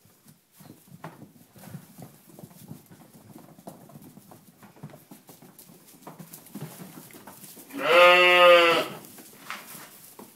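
A Ryeland sheep bleats once, a single call about a second long near the end. Around it are faint rustling and scuffling of lambs' hooves on straw.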